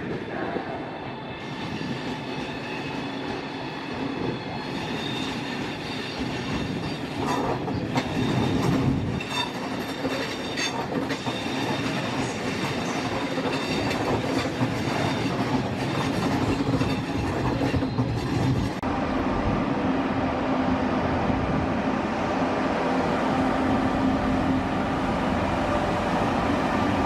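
A passenger train moving through a railway station, its running noise continuous with several steady high tones over the rumble. About two-thirds of the way through it gets louder and steadier, with a clear low hum.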